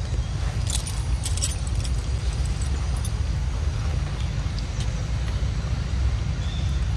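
Steady low rumble, with a few sharp clicks and a jingling rattle in the first second and a half, and a faint high chirp near the end.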